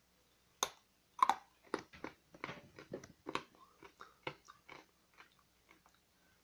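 A hard candy cane being bitten and crunched between the teeth: a run of sharp, irregular crunches, loudest in the first few seconds and growing fainter toward the end.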